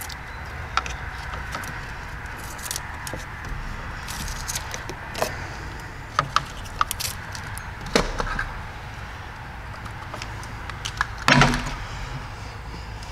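Small clicks, ticks and rustles of hands handling and twisting wires in an engine wiring harness, with a louder knock about eleven seconds in, over a steady low hum.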